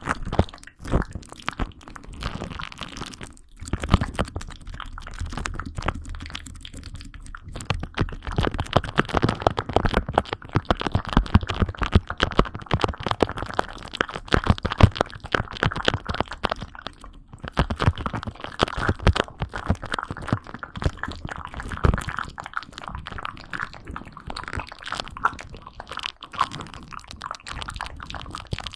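Close-miked ASMR trigger sounds: dense, continuous crackling and crunching made of many small clicks and snaps.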